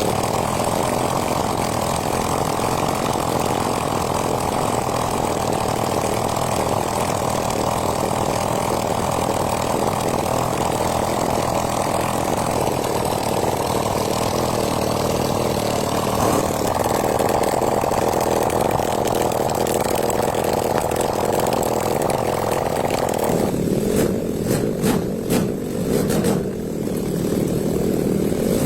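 Freshly assembled three-cylinder engine running steadily just after starting. About 23 seconds in its sound turns lower and duller, with a few sharp clicks.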